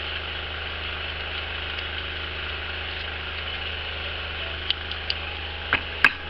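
Steady whir of a small electric fan motor with a low hum underneath, and a few light clicks near the end.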